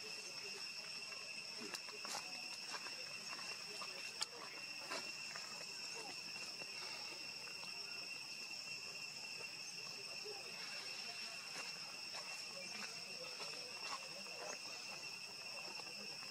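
Insects chirring: one steady, unbroken high-pitched drone, with a few short clicks over it, the sharpest about four seconds in.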